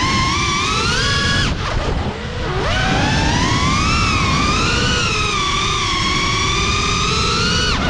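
FPV drone's motors and propellers whining in flight, the pitch rising and falling with the throttle. About a second and a half in, the whine drops away, then climbs back up over the next second. A steady rushing noise runs underneath.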